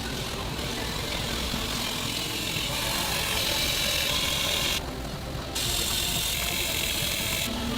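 Steady mechanical factory noise from a pipe mill, with a hissing high band that cuts out abruptly twice, for a moment about five seconds in and again near the end.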